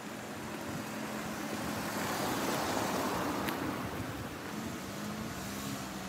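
Motor vehicle on the road: broad road noise swells to its loudest around the middle and eases off again, over a faint low steady engine hum.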